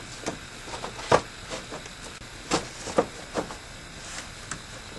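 Several sharp knocks and clicks, the loudest about a second in and a few more around the middle, as the air intake housing is worked onto the engine, its pins being lined up with the holes.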